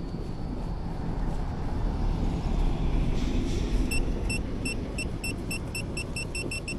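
Tracer-gas leak detector beeping in short high-pitched beeps that start about two-thirds of the way in and come faster and faster, over a low rumbling background noise. The quickening alarm means the detector is picking up tracer gas escaping from the buried heating pipe's leak point.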